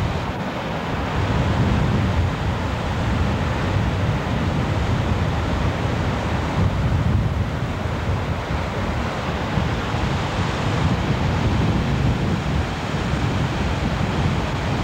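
Ocean surf breaking and washing up the beach: a steady, continuous rush of waves with a heavy low rumble.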